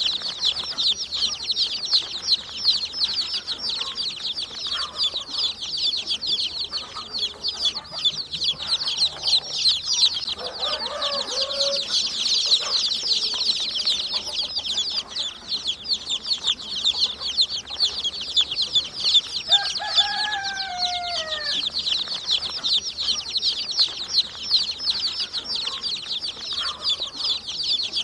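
A brood of baby chicks peeping continuously, many rapid overlapping high chirps at once. A few lower, falling calls stand out about 11 seconds and 20 seconds in.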